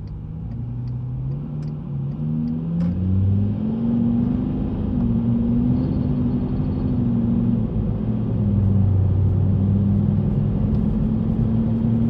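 Volkswagen Touareg's V10 TDI twin-turbo diesel engine pulling under acceleration, heard from inside the cabin: the note rises in pitch over the first few seconds, then holds steady, with a brief dip about eight seconds in before it picks up again.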